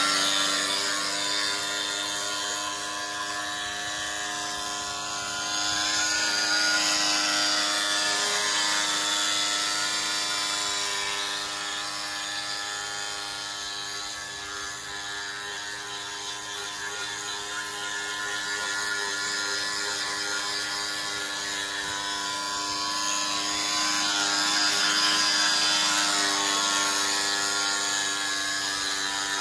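Small electric motor of an RC speedboat running at steady speed, a continuous high-pitched whine that fades as the boat heads out and grows louder again as it comes back.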